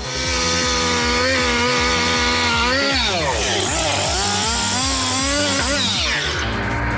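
Two-stroke chainsaw running at high revs, its pitch sagging and recovering twice as it loads up in the cut. About six seconds in the sound changes abruptly to a different, noisier sound.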